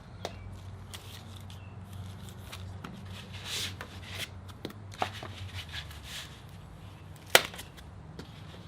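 Packaging being handled while the light bar is unboxed: rustling and scraping with scattered small knocks, and one sharp loud click about seven seconds in, over a steady low hum.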